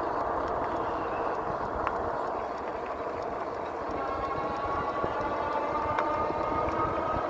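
Riding a pedal-assist e-bike: steady wind rumble on the microphone and tyre noise on pavement. A faint electric-motor whine rises slightly in pitch over the second half.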